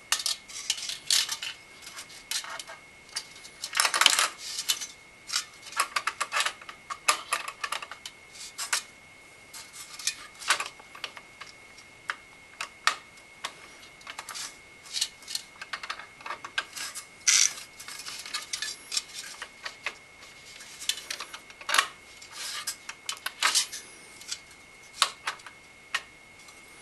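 The metal mounting crossbar and screws of a Silverstone Heligon HE01 CPU cooler clicking and clinking irregularly as they are fitted by hand onto the cooler mount, with a few sharper knocks.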